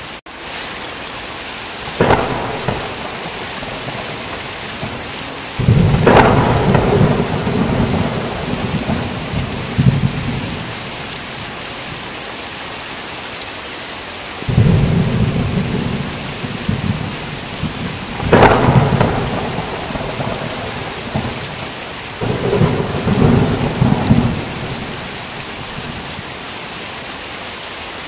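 Steady heavy rain hissing throughout, with thunder breaking in about five times. A short crack comes about two seconds in, followed by longer rolling peals that begin with a sharp crack and rumble on for a few seconds before fading back into the rain.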